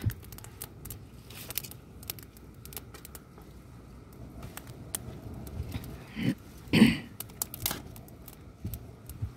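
Dry twigs being snapped by hand and laid on a small, newly lit campfire, with light crackling and scattered clicks throughout, and a few louder snaps and rustles about two-thirds of the way in.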